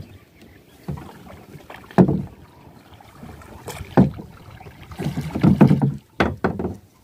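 Bamboo pole worked as an oar from the bow of a wooden boat on a river, heard as a series of sudden strokes about one to two seconds apart.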